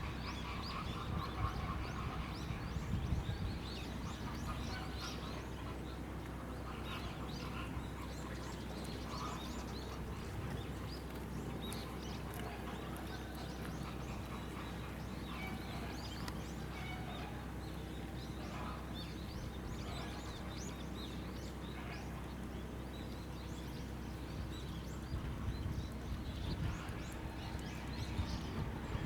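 Birds chirping over a steady low hum, with low rumbling near the start and again near the end.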